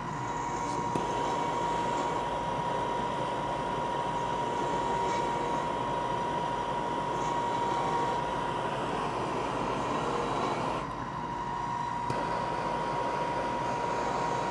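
Hand-held gas torch burning with a steady rushing hiss as its flame heats a titanium die. It starts about half a second in and dips briefly about eleven seconds in before coming back.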